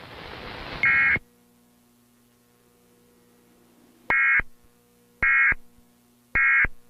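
Emergency Alert System end-of-message data bursts: short bursts of digital data tones. One comes about a second in and a hiss of static stops just after it; then three more follow about a second apart, with a faint steady hum between them.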